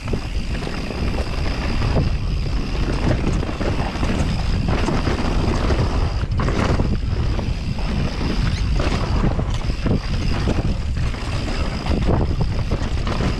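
Mountain bike riding fast downhill on a dirt trail: wind buffeting the microphone over a rumble of tyres and rattling bike, with scattered knocks from bumps in the trail.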